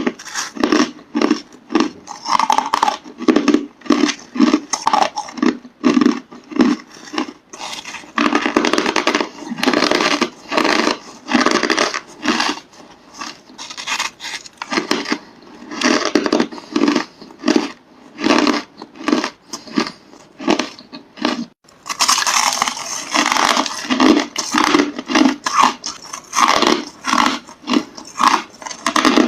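A person biting and chewing hard crushed ice in large mouthfuls: a dense run of crisp crunches, several a second, brighter and sharper in the last part.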